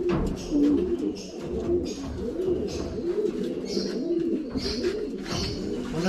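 Several domestic pigeons cooing at once in a loft: low, overlapping, wavering coos throughout.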